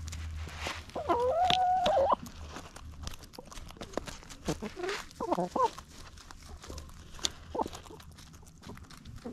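Backyard hens clucking while they peck at food. A drawn-out call about a second in is the loudest sound, followed by a few short broken clucks around the middle and one more short note later. Quick beak taps and pecks sound throughout.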